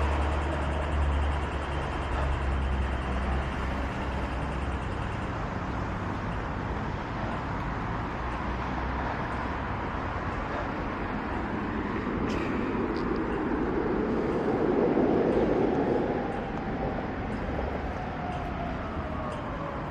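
Road traffic: a steady wash of traffic noise with a low engine rumble over the first few seconds, then a vehicle passing close about three-quarters through, and a slowly falling tone near the end.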